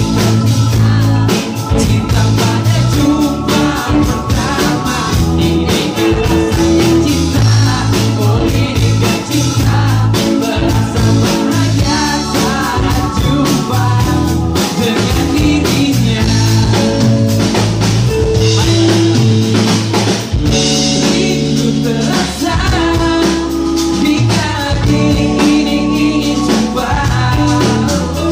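Live band playing a song: a male singer over electric guitars, bass and a drum kit keeping a steady beat.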